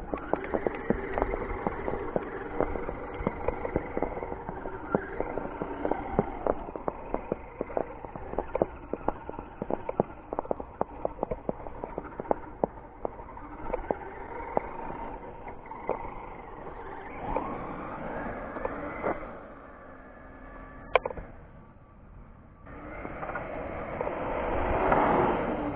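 Axial SCX10 RC crawler driving on its Castle Creations Mamba X 4600kv brushless motor and geared drivetrain, a whine with many sharp clicks throughout. The pitch rises with throttle a little after halfway and again near the end, where it is loudest.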